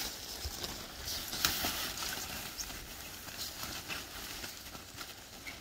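Australian Shepherd puppies scuffling about and pushing against a nylon play tunnel: a run of rustles and crinkles of fabric and paws on grass, the loudest crinkle about a second and a half in.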